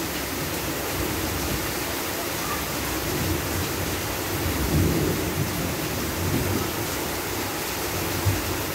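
Heavy rain falling steadily, with low thunder rumbling and swelling around the middle. A short thump sounds near the end.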